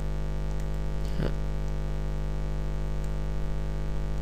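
Steady electrical hum and buzz with many overtones, the mains hum carried on the recording. A brief soft noise sounds about a second in.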